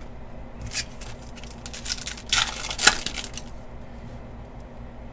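Trading cards being handled and flipped through by hand: soft sliding and flicking of card stock, with a short burst of rustling and a sharper click about halfway through.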